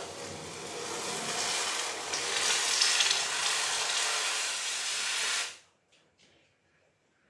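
Red-hot forged steel blade hissing and sizzling as it is quenched in a bucket of water to harden it. The steady steam hiss cuts off suddenly about five and a half seconds in.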